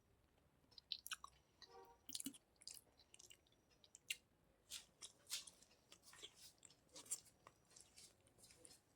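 Close-up eating sounds: irregular, soft wet smacks and clicks of a mouth chewing food, a couple a second.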